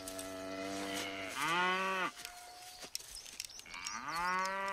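Cow mooing: long drawn-out moos, one swelling about a second in and another starting near the end.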